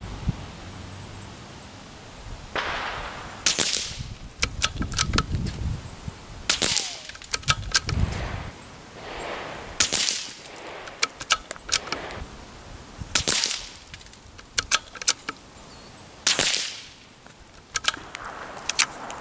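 Five suppressed shots from a Tikka T1x bolt-action .22 LR rifle firing Winchester 42-grain subsonic rounds, evenly spaced about three seconds apart. Between the shots comes a quick run of sharp clicks as the bolt is worked to chamber the next round.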